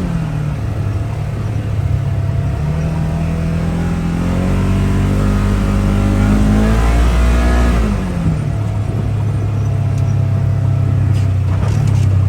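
Polaris side-by-side UTV engine under way, climbing in pitch as it accelerates, then dropping quickly about eight seconds in as the throttle comes off, and running steadily after that.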